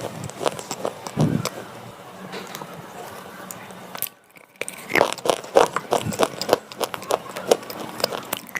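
Slate pencil being bitten and chewed, with irregular crisp crunches and grinding. It breaks off briefly about halfway, then a quick run of sharp crunches follows.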